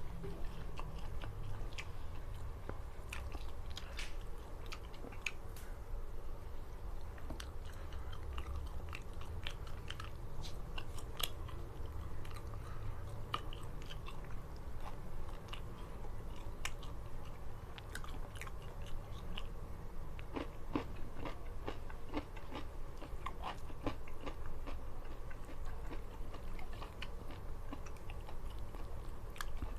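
A person eating, chewing steadily with many short crisp crunches and clicks scattered through.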